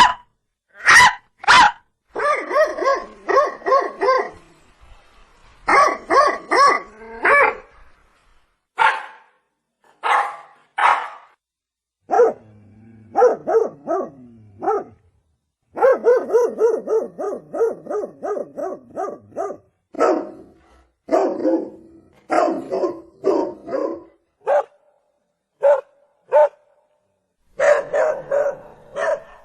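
Dog barking: single sharp barks and quick runs of several barks in a row, broken by short pauses.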